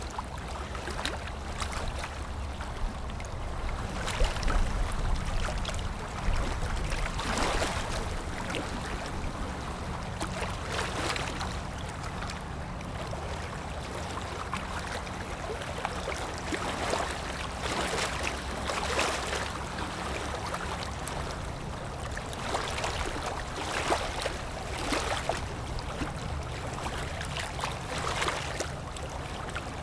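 Container ship under way: a steady low engine drone, with water rushing and splashing in irregular surges as the hull and wake push through the waves.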